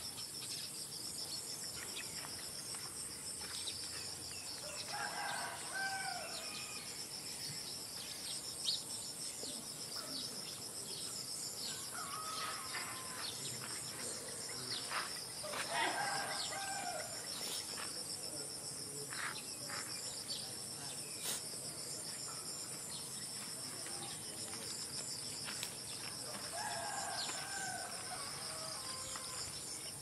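A rooster crows three times, roughly ten seconds apart, over a steady high chirring of insects.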